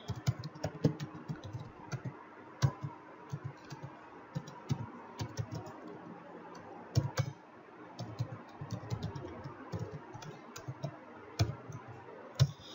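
Typing on a computer keyboard: a run of irregular key clicks, with a few louder keystrokes standing out.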